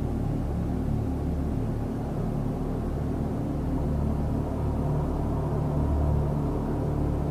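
Dark ambient music: a low, steady drone of sustained tones with no beat.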